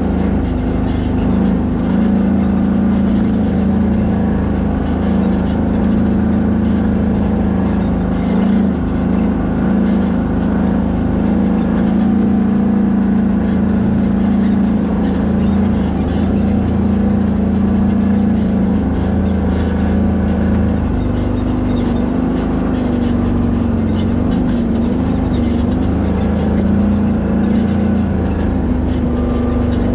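Off-road vehicle engine running steadily while driving along a trail, its pitch wavering slightly up and down in the second half.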